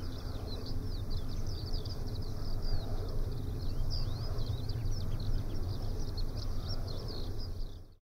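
Wind turbine running at about 250 metres on a calm day: a steady low whooshing hum, with many small birds chirping and twittering over it. It fades out near the end.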